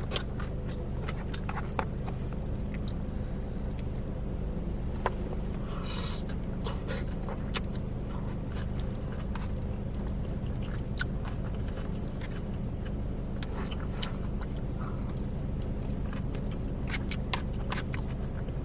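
Close-up chewing and biting, with many short crunchy clicks, over a steady low hum.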